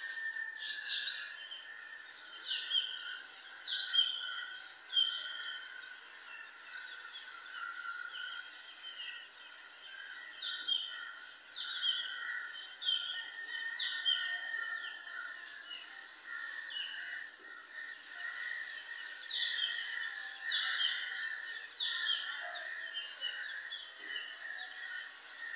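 Birds chirping: short, repeated downward chirps over a continuous twittering chorus.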